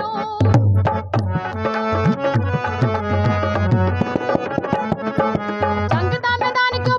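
Harmonium playing an instrumental melody over a steady dholak beat between sung verses of a Punjabi folk song.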